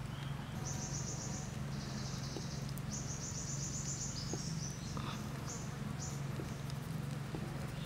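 Insects trilling in short, high, pulsed bursts, one after another until about six seconds in, over a steady low hum and a few faint clicks.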